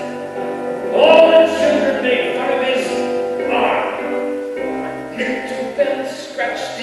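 Live song: a man singing, holding long notes, over acoustic guitar.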